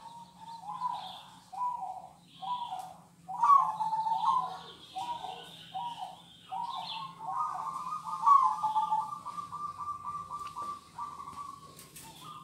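Zebra doves (perkutut) cooing: a run of short, separate coos about two a second, then a longer rolling trill of notes from about seven seconds in.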